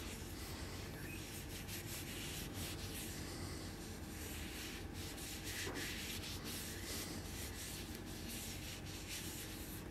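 A cloth rubbing over the wooden handle and stainless steel of a bowie knife, quietly wiping and polishing it in quick, repeated strokes.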